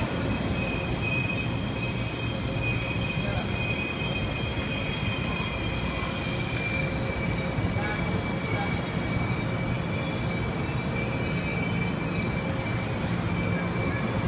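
CRH380B high-speed electric multiple unit creeping to a stop alongside the platform: a steady low rumble under a loud, high-pitched hiss and whine.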